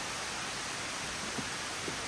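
Steady rush of waterfall water, an even hiss with no pitch to it, with a couple of faint taps in the second half.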